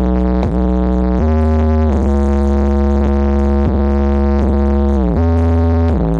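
Synthesizer music with a very heavy, sustained deep bass, played loud through a large outdoor-cinema PA sound system. Held notes change pitch every second or so, with short downward bends between them.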